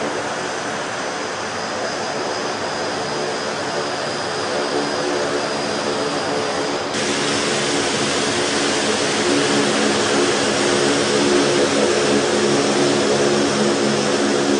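Military aircraft's turbine engines running steadily, a loud rush over a droning hum, growing louder and brighter about halfway through.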